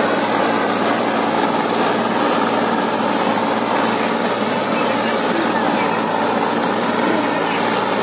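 Deutz-Fahr 55 tractor's diesel engine running steadily under heavy load, hauling a trolley heavy enough to lift its front wheels off the ground, with onlookers' voices underneath.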